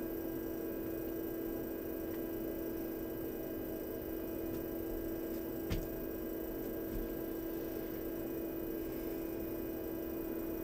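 Steady low hum with one short click a little over halfway through.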